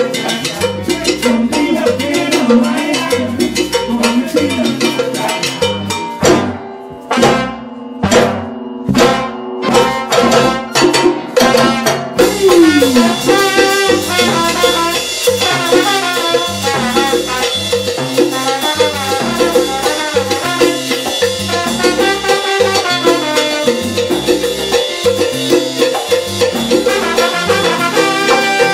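Live salsa band playing: timbales, congas, bongos, cowbell, trombones and keyboards. About six seconds in the band breaks into a run of separate sharp percussion hits for several seconds. Around twelve seconds in the full band comes back in with sustained horns.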